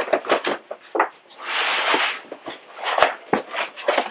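Cardboard shipping box being opened by hand: the flaps knock and rustle, with a half-second rasp of cardboard or tape about a second and a half in and a sharp knock about three seconds in.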